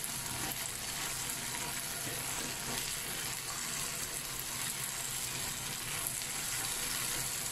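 Chicken pieces with onion and tomato frying in oil in a pan, a steady sizzle.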